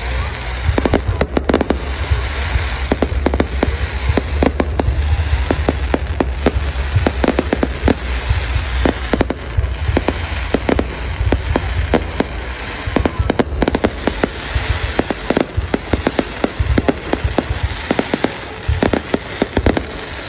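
Aerial fireworks display going off without pause: many sharp bangs a second in quick succession, over a steady low rumble that weakens a little past halfway.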